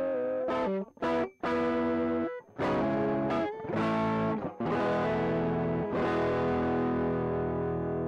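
Electric guitar through an overdriven pedalboard tone: a series of distorted chords and stabs with short breaks between them, the first chord wavering in pitch. From about six seconds in, a last chord is left ringing and slowly fades.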